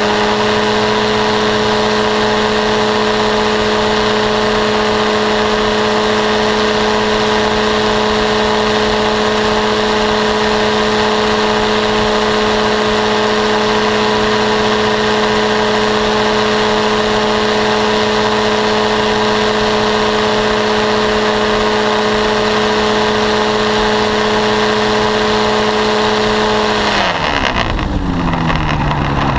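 Paramotor trike's engine and propeller running steadily at high power in flight. About 27 seconds in, the throttle is pulled back and the engine's pitch falls quickly toward idle, while a low rumble rises underneath.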